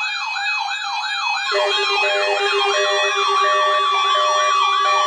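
Electronic siren yelping, its pitch sweeping rapidly up and down about three times a second. About a second and a half in, lower pulsing alarm tones join it.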